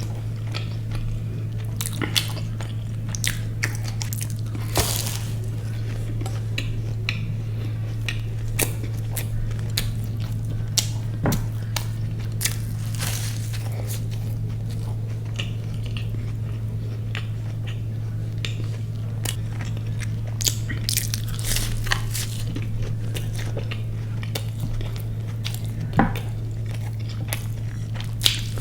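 Close-up chewing and biting of food, with scattered crunchy clicks and crackles. A steady low hum runs underneath.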